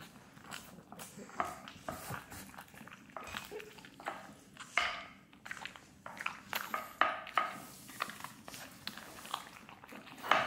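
French bulldog chewing a piece of toast crust: irregular crunches and clicks, loudest about five, seven and ten seconds in.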